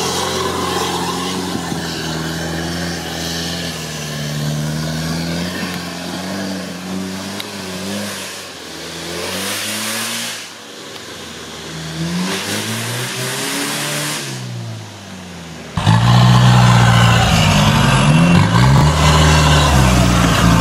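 Mitsubishi Pajero 4x4 engine revving up and down under load off-road, its pitch rising and falling repeatedly. About three quarters of the way through it suddenly gets louder and closer.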